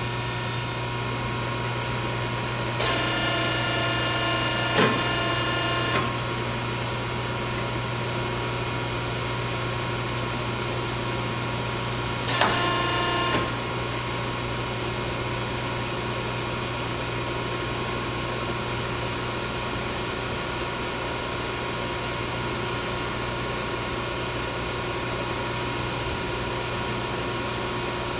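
Pines I-Line CNC tube bender running with a steady hum. A pitched whine rises over it twice, for about three seconds starting about three seconds in, with a knock partway through, and again for about a second near the middle, as the bender's carriage moves along the bed.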